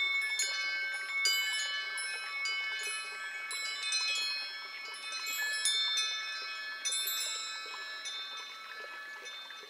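Wind chimes ringing: clusters of bright metal tones struck every second or two, each left to ring out, fading toward the end.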